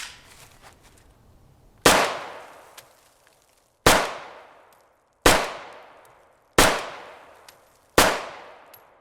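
CZ Scorpion Evo 3 short-barrelled rifle in 9mm firing five single shots, spaced about one and a half to two seconds apart. Each shot is followed by a ringing tail that dies away over about a second.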